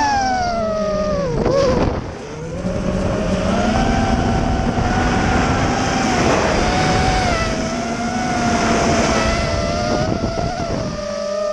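Racing quadcopter with Xnova 2204 brushless motors whining. The pitch drops steeply as the throttle is pulled back, dips about two seconds in, then climbs back and holds a wavering steady whine.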